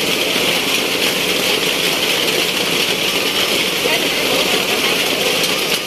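Heavy rain pouring down, a loud, steady hiss of drops on wet pavement and outdoor tables.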